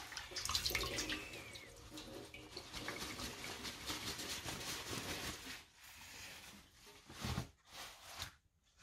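Water streaming and dripping off a soaked swimsuit lifted out of a bowl of water, splashing into a stainless steel sink; it dies away after about five seconds, followed by fabric handling and a short thump.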